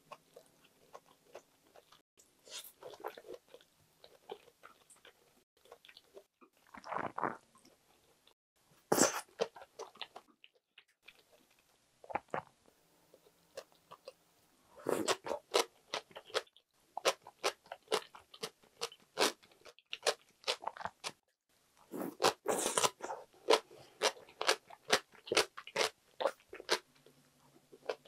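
A person chewing and crunching Korean side dishes close to the microphone: scattered bites at first, then a dense run of quick, crisp crunches in the second half.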